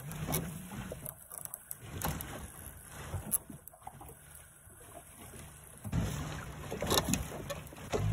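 A small motorboat under way: its motor runs with a steady low hum under scattered knocks and water noise, getting louder about six seconds in.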